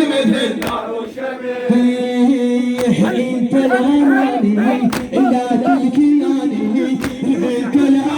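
Male voices chanting a Shia latmiyya (mourning poem) unaccompanied, in a choir-like unison over a steady held note, with a sharp beat about every two seconds.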